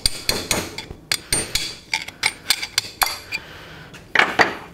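Carpenter's hammer striking a metal drift, a quick run of sharp metallic taps about three to four a second, driving a bearing race out of a Land Cruiser 60 Series rear wheel hub. Near the end comes a louder metallic clatter of the tools on the workbench.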